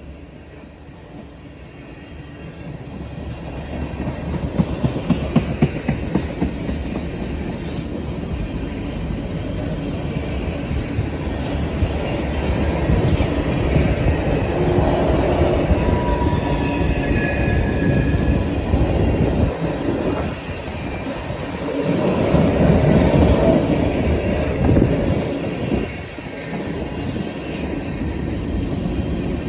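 Railroad tank cars of an ethanol freight train rolling past, their steel wheels rumbling and clacking over the rail joints, getting louder over the first few seconds. A few short high wheel squeals come about halfway through.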